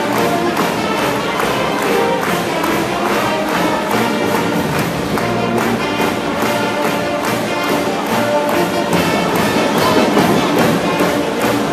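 High-school pep band playing brass-led music with a steady drum beat.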